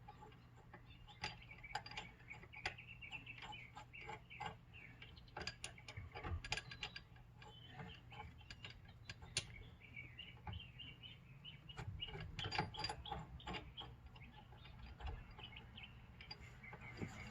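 Irregular, fairly faint metallic clicks and taps from a steering wheel puller being fitted and adjusted on the steering wheel hub, with a busier run of clicking past the middle.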